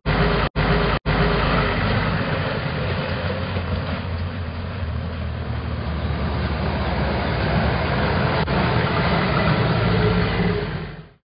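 Engine sound effect for a military truck, running steadily as it drives past. It cuts out briefly twice in the first second or so and fades away near the end.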